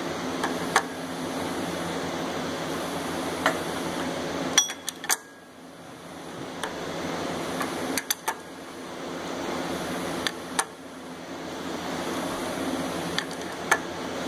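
An engine out of its vehicle being turned over by hand with a wrench, giving sharp metallic clicks every second or few over a steady hiss that rises and falls. No squeak or rubbing noise turns up.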